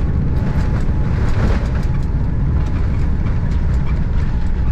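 A vehicle running: a steady low rumble with light clicks and rattles over it.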